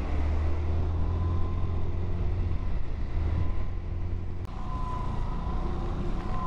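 Motor scooter engine running steadily under way in traffic, a low rumble with a faint steady whine above it. A short click about four and a half seconds in.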